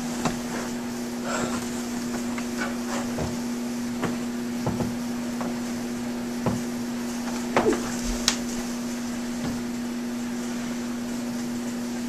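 A steady low hum, with scattered light clicks and knocks; the sharpest click comes about eight seconds in.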